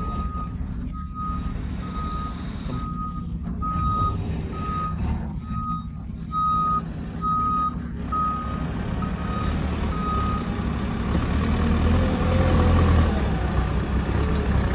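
Heavy machine's reversing alarm beeping steadily, a little over once a second, over its diesel engine running. The beeping stops about ten seconds in, and the engine grows louder towards the end.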